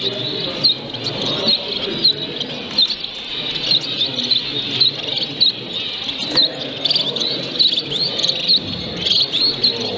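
Many caged finches calling at once: a steady stream of short, high chirps, several a second, over a low background murmur.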